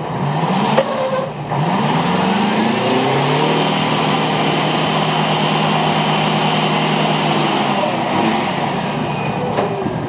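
Well-service pulling unit's engine revving up in three rising pulls, then running steadily at high revs while hoisting, easing off near the end. A brief hiss about a second in.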